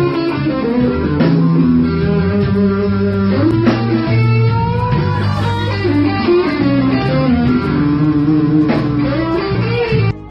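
Background music: a guitar-led track with plucked and strummed electric guitar over a bass line. It drops to a quieter passage near the end.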